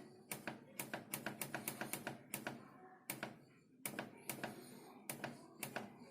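A rapid, irregular series of sharp clicks, about five a second, in two runs separated by a pause of about a second.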